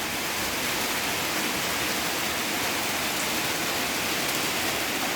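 Steady rain falling: an even, continuous hiss of rain with no letup.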